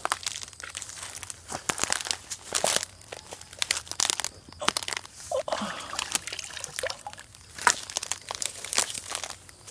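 Irregular rustling and crunching of dry grass, twigs and leaves as someone walks and pushes through undergrowth at a ditch edge, handling a plastic eel-trap tube.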